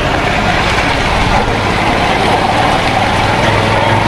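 Motor vehicle on the road: a continuous noise of engine and road. A low engine hum grows stronger about three and a half seconds in.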